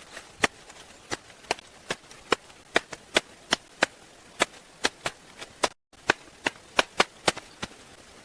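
Wood being chopped with quick, sharp strikes, about two to three a second.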